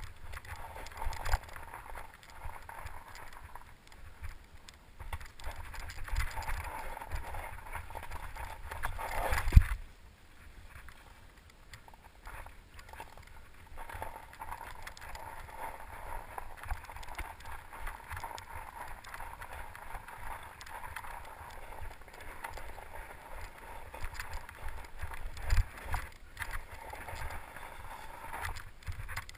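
Mountain bike ridden over a snowy, leaf-strewn trail: tyres crunching through snow and leaves, with rattles and knocks from the bike over bumps and one loud jolt about a third of the way through.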